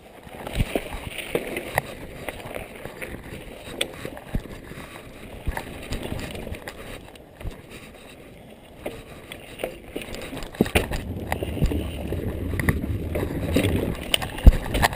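Mountain bike riding over a dirt forest trail: tyre noise on dirt with frequent knocks and rattles from the bike, growing louder and rougher from about ten seconds in.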